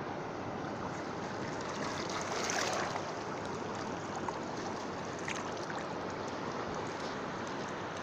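Shallow sea water washing over rocks and weed, with small splashes and a few faint clicks from hands working in the water; the wash swells a little about two and a half seconds in.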